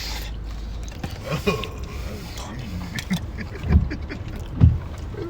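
People biting into and chewing slices of pizza, with short muffled voice sounds and small handling clicks; two louder low thumps near the end.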